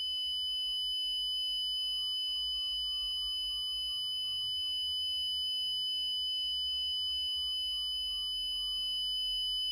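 A steady high-pitched sine tone held without a break, with a second, fainter steady tone above it. Underneath runs a low rumble of synthesized brown noise, and faint lower tones shift pitch every second or so.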